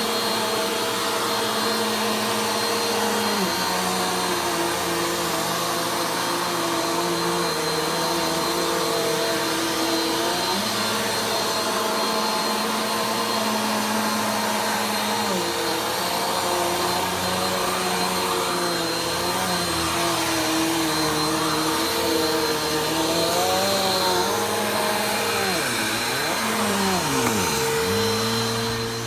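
Vacuum cleaner running continuously, a steady rushing hiss under a motor whine. The whine shifts pitch a few times and wavers, then dips and swoops sharply near the end as the load on the motor changes.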